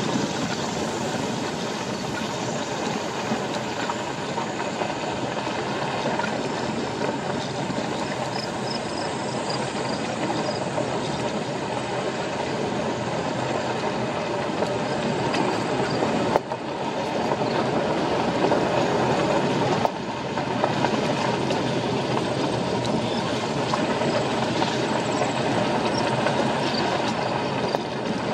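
Steady road noise of car tyres rolling over a gravel road, heard inside the car's cabin.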